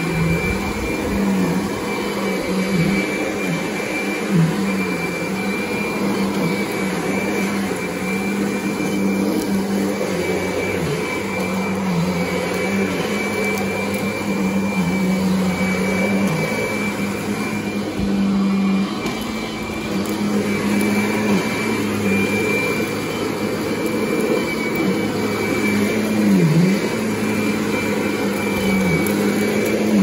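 Kirby Sentria upright vacuum cleaner running on carpet: a steady motor hum with a high whine above it, the hum dipping briefly in pitch every few seconds.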